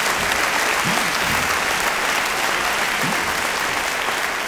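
Large audience applauding in a big hall: a dense, steady wash of clapping from thousands of hands.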